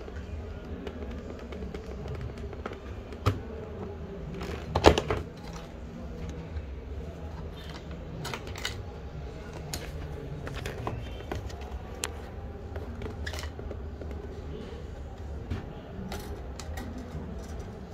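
Light clicks and taps of plastic and wire as the coiled heating element of a Lorenzetti Duo Shower electric shower head is handled and worked out of its heater chamber, with a sharp knock about three seconds in and a louder clatter about five seconds in, over a steady low hum.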